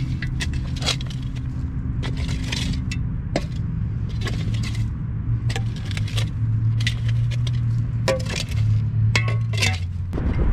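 Repeated scrapes and sharp clinks of metal and brick rubble being moved around, over a steady low motor hum.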